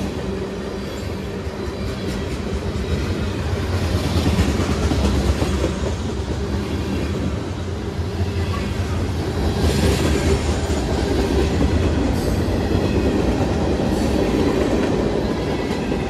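Freight train cars, covered hoppers and then gondolas, rolling past close to the track: a steady, loud rumble of steel wheels on rail with clickety-clack as the wheels cross the rail joints.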